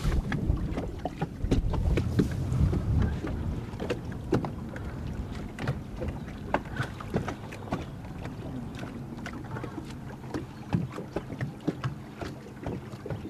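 Small waves lapping and slapping against a bass boat's fiberglass hull in irregular little ticks and splashes, over a steady low wash. Wind buffets the microphone in the first few seconds.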